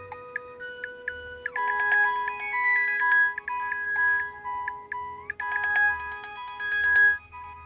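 Nokia 5140 mobile phone ringtone playing: an electronic tune of short, clean notes over a held low note, growing fuller about a second and a half in and again about five and a half seconds in.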